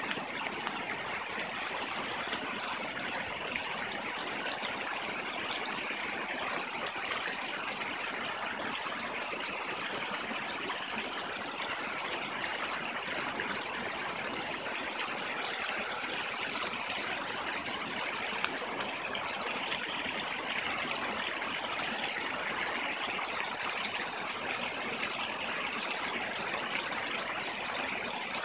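Fast-flowing stream rushing over rocks and small cascades: a steady, even rush of water.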